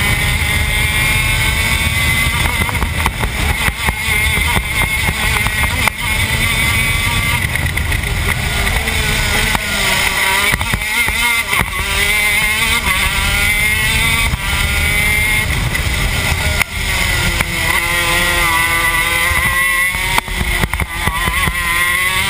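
TM K9c 125cc two-stroke shifter kart engine at racing speed, revving hard and shifting. Its pitch drops twice as it brakes and downshifts for corners, around ten and seventeen seconds in, then climbs again under acceleration.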